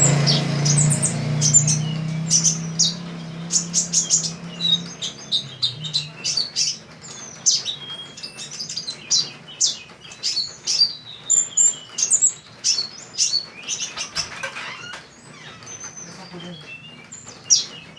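A sunbird, the bird sold in Indonesia as 'kolibri ninja', singing a long, fast run of sharp, high chirps and twittering trills with short gaps between phrases. A low hum underneath fades out over the first few seconds.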